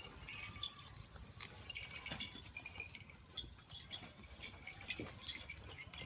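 Goats feeding on napier grass at a trough: scattered crisp crunches, tears and leaf rustles as the stalks are pulled and chewed.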